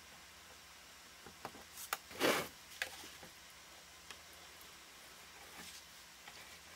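Quiet handling sounds from gluing a PVC elbow into a plastic bucket with a caulking gun: a few light clicks, then one short scraping rustle about two seconds in, and a single click soon after.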